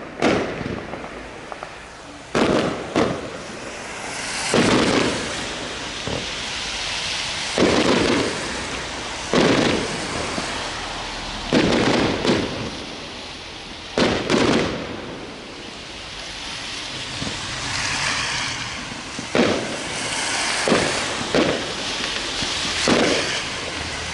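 Fireworks display: about a dozen aerial shells bursting with sharp bangs at irregular intervals of one to three seconds, with a steady hiss between the bursts.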